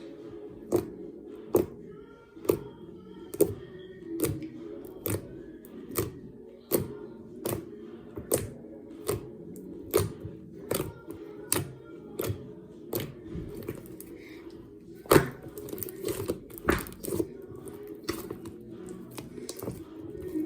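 Slime being squeezed and poked by hand, giving a sharp pop or click a little more often than once a second, in an even rhythm. The loudest pops come about three quarters of the way through.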